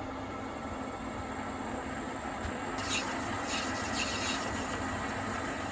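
Warco 250V metal lathe running with a steady hum and a thin high whine, turning down small brass stock, with faint scratchy cutting noise partway through.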